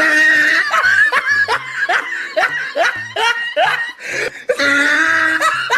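Laughter, in a run of short snickering bursts.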